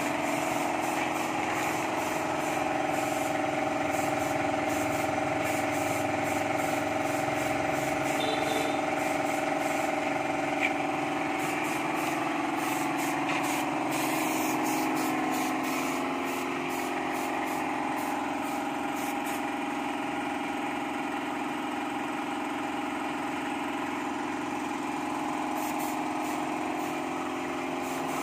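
A small air compressor running steadily with a hum, under the hiss of a paint spray gun spraying. The hum drops a little in pitch and loudness about halfway through.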